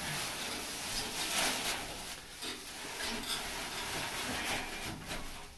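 Dry hay rustling in irregular bursts as handfuls are pushed and packed into chicken nesting boxes.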